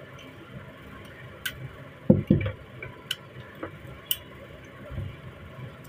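Metal parts of a 30 bore rifle being handled during reassembly: a few sharp clicks, with two heavier knocks close together about two seconds in and a softer knock near the end.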